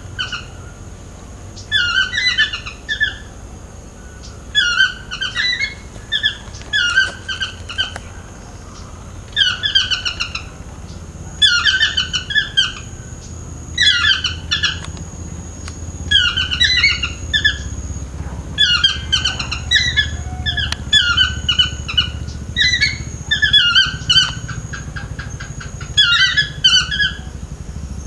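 Chestnut-mandibled (yellow-throated) toucan calling: a yelping phrase of three or four short downslurred notes, repeated about every one to two seconds.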